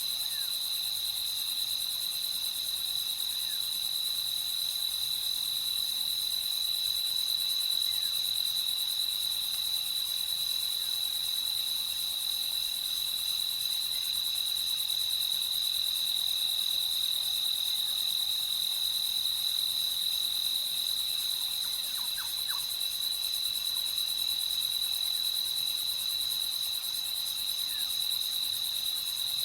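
Crickets chirping in a continuous, high, fast-pulsing trill that holds steady throughout, with a few faint short chirps from another animal about two-thirds of the way through.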